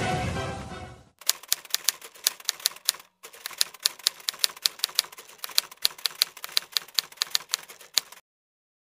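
Typewriter-style typing sound effect: a quick run of sharp key clacks at several a second, with a brief pause about three seconds in, stopping shortly before the end. Music fades out in the first second.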